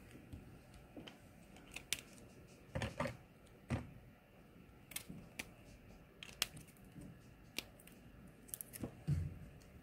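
Plastic markers being handled as a set is searched for another colour: scattered light clicks and clacks, with a few duller knocks about three seconds in, just before four seconds, and near the end.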